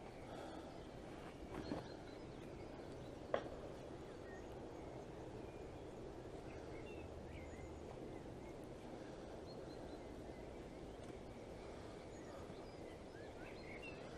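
Quiet outdoor background with faint bird chirps, and a single sharp click about three seconds in.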